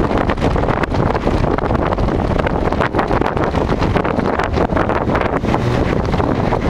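Strong wind buffeting the microphone: loud and continuous, with a heavy low rumble and quick crackling gusts throughout.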